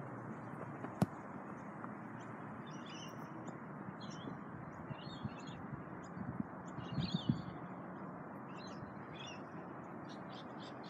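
Birds chirping again and again over a steady outdoor background hiss. A single sharp knock comes about a second in, and a few low thuds come between six and seven seconds in.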